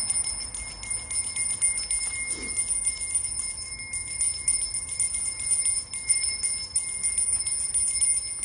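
Small bells jingling rapidly and continuously, a steady high ringing over many quick strikes.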